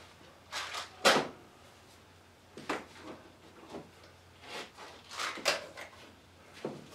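Things being handled at a workshop shelf: a run of irregular knocks and clatters, the loudest about a second in, over a low steady hum.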